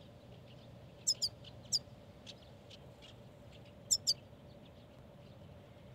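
Caged goldfinch calling: short, high, sharp chirps, mostly in quick pairs, about a second in, again near two seconds and about four seconds in, with fainter chirps in between.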